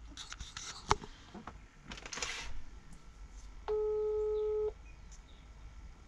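Mobile phone ringback tone coming faintly from the handset while a call connects: a single steady beep about a second long, starting a bit past the middle. A few light clicks come in the first couple of seconds.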